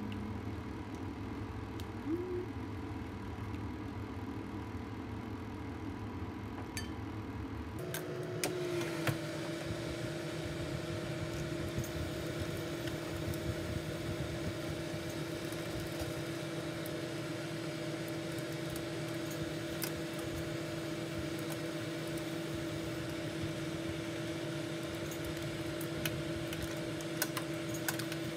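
Steady mechanical hum of a Philips air fryer's fan running, changing about eight seconds in to a steadier, slightly higher-pitched drone. A few light clicks are heard here and there, most near the end.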